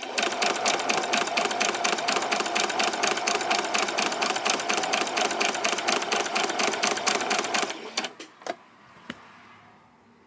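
Electric sewing machine running steadily at speed, stitching a seam in a rapid even rhythm; it stops about eight seconds in, followed by two sharp clicks.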